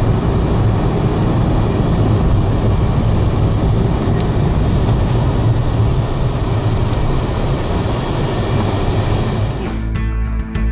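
Steady road and engine noise heard inside a moving vehicle's cabin. Near the end it cuts suddenly to live acoustic guitar with a singer.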